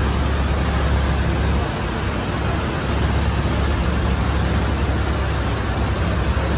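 Diesel engine of a mobile crane running under load with a steady low drone. It eases off briefly just under two seconds in, then picks up again.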